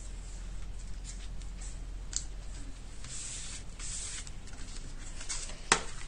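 Paper being handled and rubbed on the work surface: soft rustling and scraping, busiest about three to four seconds in, with one sharp tap a little before the end.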